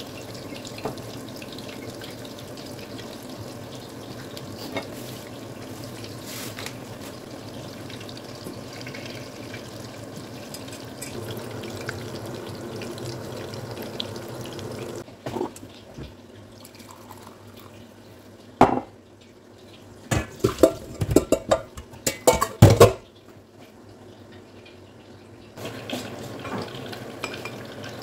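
Hot oil sizzling steadily as breaded salmon fillets deep-fry in a stainless steel pot. About halfway through the sizzle drops away to a series of sharp clinks and knocks of cookware and utensils, then the sizzle returns near the end.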